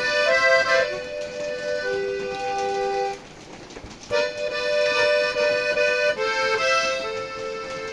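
Accordion playing held chords and melody notes, dropping away briefly about three seconds in before a loud chord comes back in.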